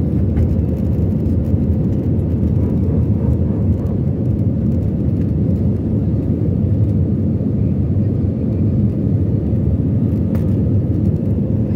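Steady roar of a jet airliner's engines and airflow heard from inside the cabin while the aircraft climbs out after takeoff.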